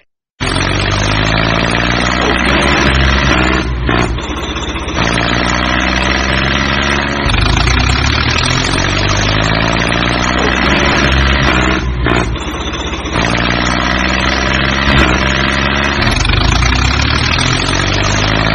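A tractor engine sound effect running steadily with some rise and fall in revs, laid over the toy tractors; the same stretch of engine sound repeats.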